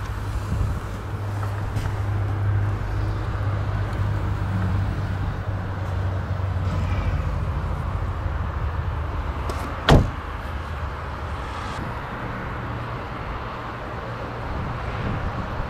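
A car door, on a 2014 Brilliance H530, is shut with a single sharp thump about ten seconds in, over a steady low hum.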